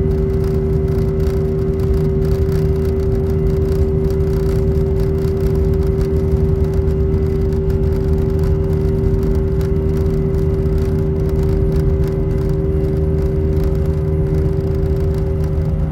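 Airbus A319 twin jet engines heard from inside the passenger cabin, running steadily at high power: a constant loud drone with a strong steady hum over a deep rumble.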